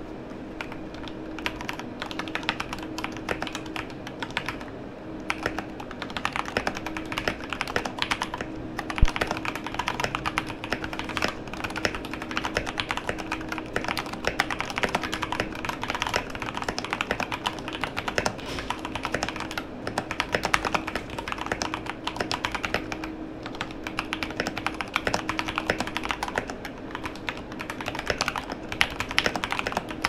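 Modded Royal Kludge RKG68 mechanical keyboard with stock red linear switches, typed on steadily in a continuous run of quick key strokes.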